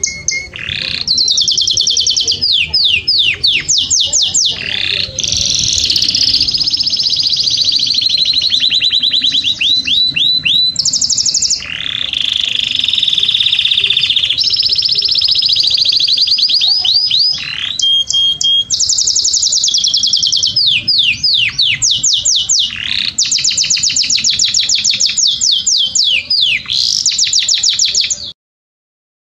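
Domestic canary singing a long, high-pitched song of rapid trills and rolls run one after another with brief pauses; the song cuts off abruptly near the end.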